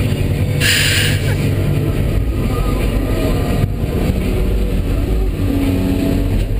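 Komatsu PC300 excavator's six-cylinder diesel engine and hydraulics running steadily under load, heard from inside the cab, as the bucket is emptied and the machine swings. A short hiss about half a second in.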